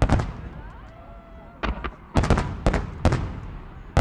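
Fireworks going off in a run of sharp bangs. A short lull comes just after the start, then the bangs pick up again, several in quick succession.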